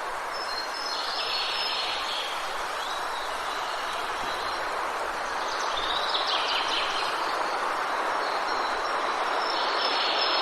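Steady wind rushing through the whole stretch, with songbirds singing over it in three short bursts of song, near the start, in the middle and at the end.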